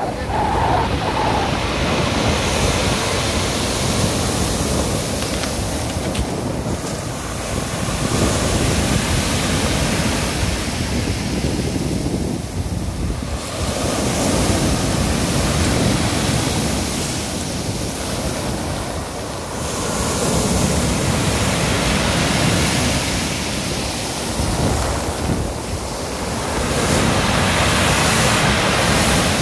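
Sea surf breaking on a pebble beach and washing up over the stones, surging louder every few seconds as each wave comes in.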